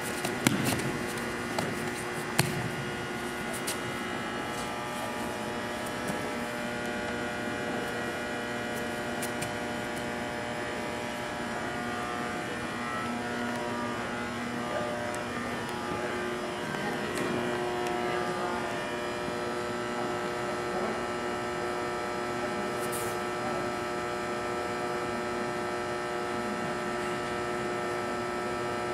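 Two heavy thuds about half a second and two and a half seconds in as grapplers are taken down onto a foam mat. After that, a steady hum with a few faint ticks.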